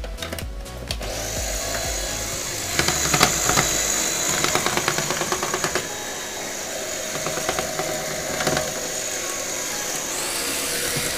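Electric food processor running steadily with a high motor whine while fresh green herbs are chopped and pushed down the feed tube, with rattling and knocking from the pusher and contents between about three and six seconds in. The motor's pitch shifts near the end.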